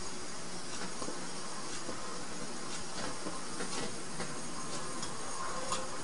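Steady hiss of breath blown through a thin crimped brass tube into an empty Sterno can, feeding air to a methanol flame so that it burns as a constant jet, with a few faint ticks.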